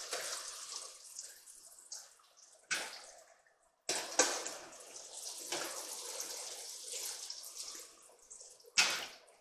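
Battered zucchini slices frying in hot oil with a steady sizzle, while a metal mesh skimmer scoops them out. The skimmer clinks and scrapes against the pan several times, loudest about four seconds in and near the end.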